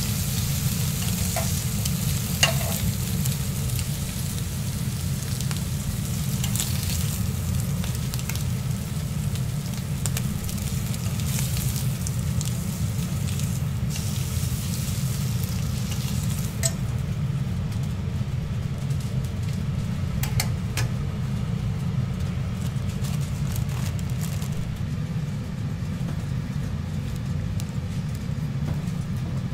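Bacon strips sizzling on a hot flat-top griddle, with occasional sharp clicks of metal tongs against the griddle plate and a steady low hum underneath. A little past halfway the sizzle's high hiss drops off and grows quieter.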